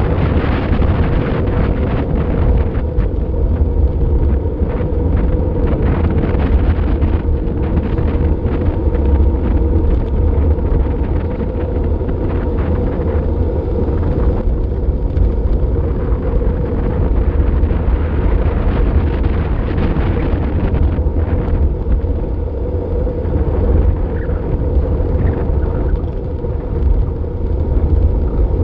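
Steady wind noise rumbling on the microphone of a camera mounted on a road bike descending at speed.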